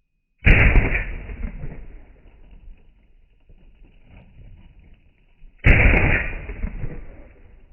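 M1 Garand rifle fired twice, about five seconds apart, each shot followed by a rolling echo that dies away over a second or two.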